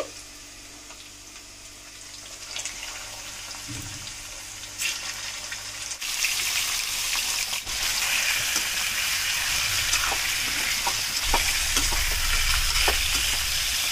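Chicken pieces frying with onions and spices in hot mustard oil in a kadai, sizzling. The sizzle is fainter at first and grows louder about halfway through, with a few sharp clicks.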